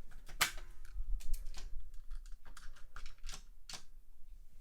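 Irregular sharp clicks and clacks of die-cast toy cars being handled and set into the lanes of a toy race track, about eight in all, the loudest about half a second in.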